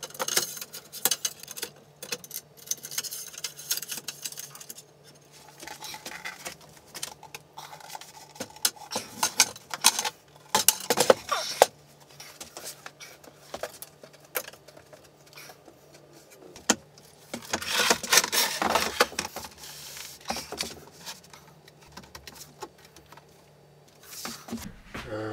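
Aluminium extrusion rails clinking and knocking as they are handled and fitted into a metal frame, with stretches of scraping as a large MDF wasteboard is slid and set down onto them.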